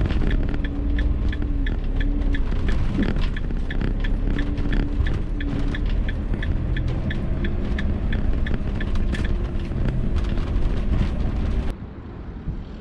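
Van rumbling along at low speed over a car park, under soft background music with a light, regular ticking beat. Near the end it cuts suddenly to quieter wind noise on the microphone.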